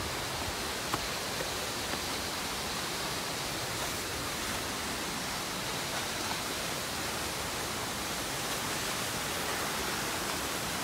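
Steady, even rushing of a waterfall, with a few faint clicks in the first two seconds.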